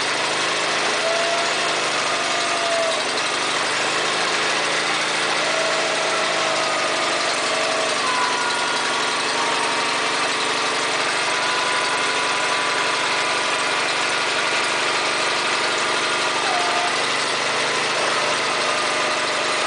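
Wood-Mizer LT40 HD sawmill's G24 gas engine running steadily, with short whining tones coming and going over it.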